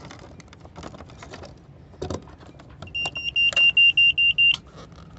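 Keys jangle and click as the ignition key is put into the instrument panel of a Westerbeke 12-D marine diesel and turned. Then the panel's alarm buzzer sounds a high, rapidly pulsing beep for about a second and a half, the warning it gives with the key on before the engine has oil pressure.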